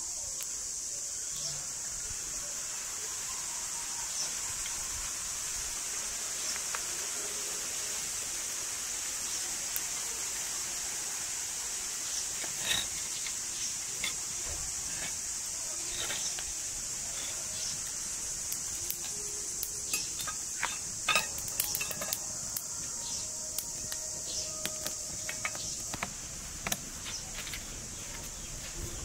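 Crackling and snapping of a small twig and stick fire as it catches, sharp pops that come more thickly in the second half. Under it runs a steady high hiss of insects.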